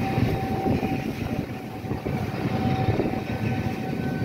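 A train standing at a station platform, giving a steady low rumble with a thin, steady whine held over it.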